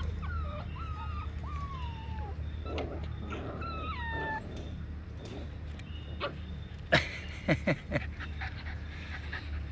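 Pembroke Welsh corgi puppies whimpering: several high, thin whines falling in pitch in the first half, then a few short sharp sounds about seven seconds in, over a steady low hum.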